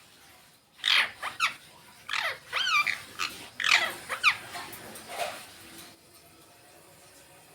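Green Indian ringneck parakeet calling: a string of short, shrill calls, each falling in pitch, over about four and a half seconds starting about a second in.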